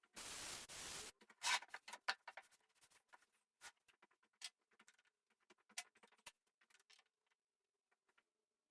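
A brief rushing scrape lasting about a second, then scattered light clicks and small knocks, from wood pieces and tools being handled at the workbench.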